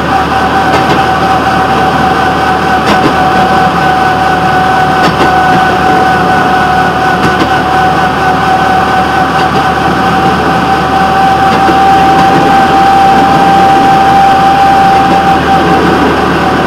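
Railroad track motorcar (speeder) running steadily along the rails, with a steady high whine and a few sharp clicks a few seconds in.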